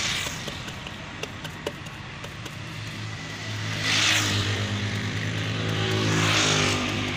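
Hands working wet clay on the rim of a clay tandoor oven: light clicks, then a few swishing strokes. A steady low engine hum comes in about three seconds in and runs under the strokes.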